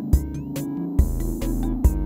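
Electronic synth jam from Korg Volca groove boxes: a Volca Beats drum machine kick a little more often than once a second with hi-hats over it, a steady Volca Bass line underneath, and short gliding bleeps on top.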